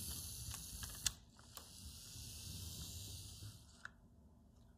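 Shell-less HAG HO-scale locomotive running along the track, its converted Märklin-type motor whirring and the drive rattling, with a few sharp clicks. The motor's field magnet is now fed through a bridge rectifier from a DC transformer. The running fades away after about three and a half seconds.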